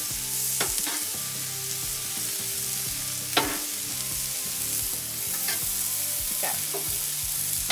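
Broccoli, onions and steaks sizzling on a steel flat top griddle while two metal spatulas stir and scrape the vegetables. Several sharp clinks of spatula on steel break through the steady frying hiss, the loudest about three and a half seconds in.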